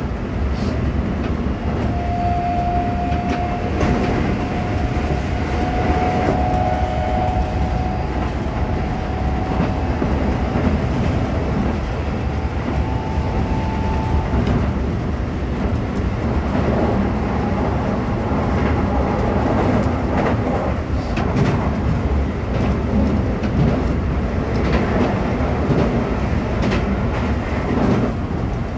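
Toei 5500 series electric train running, heard from inside the passenger car: a steady rumble of wheels on rail with rhythmic clacking over the rail joints. A thin whine climbs slowly in pitch through the first half.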